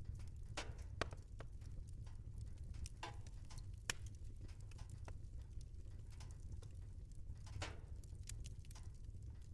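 Wood fire crackling in a fireplace: irregular snaps and pops over a low steady rumble, with two sharper pops about a second in and about four seconds in.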